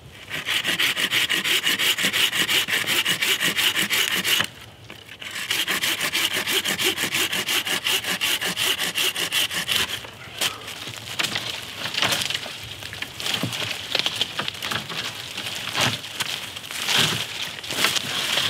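Hand saw cutting through the stem of a green sapling near its base, in quick, even strokes with a short pause about four seconds in. After about ten seconds the steady strokes give way to irregular cracks and rustling.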